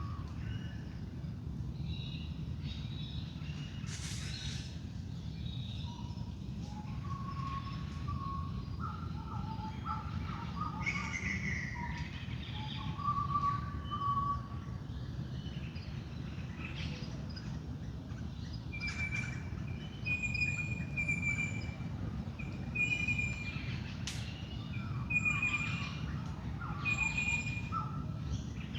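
Wild birds singing and calling in a dawn chorus, many short notes and trills overlapping. From about two-thirds of the way in, one bird repeats a clear note about once a second. Under it all runs a steady low rumble.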